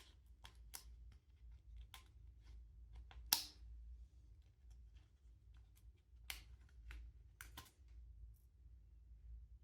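Quiet handling of a small stapler and paper: scattered soft clicks and rustles, with a few sharper clicks spread through.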